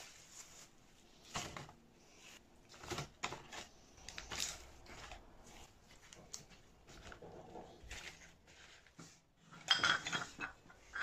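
Household objects handled on a countertop: a few soft, scattered knocks and clicks, then a louder burst of rustling and clicking near the end as a wicker basket is picked up and moved.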